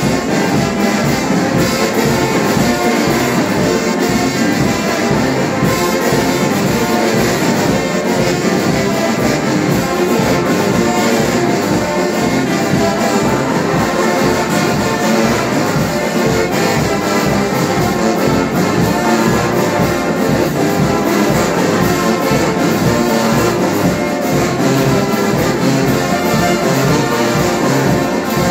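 Brass band of trumpets, trombones and sousaphones playing a tune live, over a steady beat.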